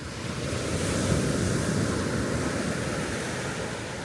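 Ocean surf washing onto the beach: one wave swells about a second in and slowly fades, with some wind on the microphone.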